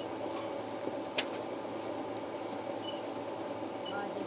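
Crickets trilling, one steady high-pitched tone, with a single click about a second in.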